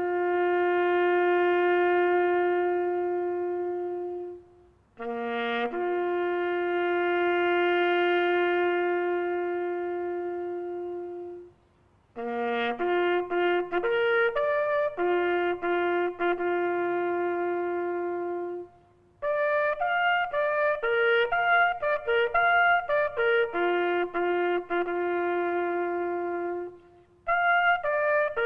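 A military bugle call played on a solo trumpet. It opens with two slow phrases, each rising to a long held note, then moves into quicker phrases of shorter notes with short pauses between them.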